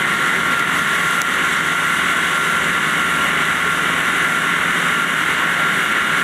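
Diamond wire saw cutting stone: the drive wheel runs the diamond-bead wire around its pulleys and through the rock with a steady, unbroken hiss and a constant high whine.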